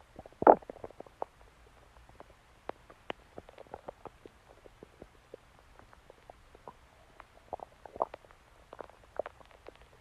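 Human stomach growling: a loud gurgle about half a second in, then a run of small gurgles and pops, with another louder gurgle about eight seconds in.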